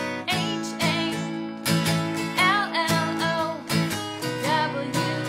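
Acoustic guitar strummed in chords, with a woman singing a children's Halloween song over it.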